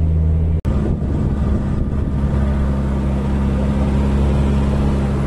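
Toyota Lite Ace van's engine running steadily under way on a rough dirt road. There is a brief break about half a second in, after which the engine runs at a slightly higher pitch.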